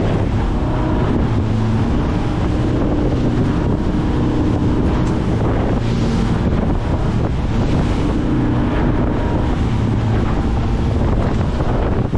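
Wind buffeting the microphone and water rushing past the hull of a Baysport 600 Offshore running through chop, over the steady drone of the boat's engine, whose note shifts up and down a little.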